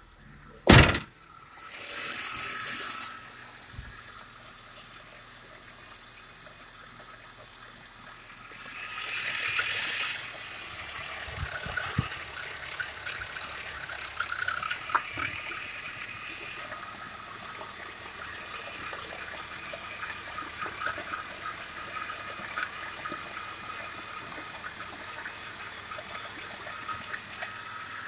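A sharp knock, then about a second of starter cranking as the BMW E39's 2.2-litre M54 inline-six starts, after which it idles steadily. From about nine seconds in it is heard close up over the open oil filler, with a light fast ticking.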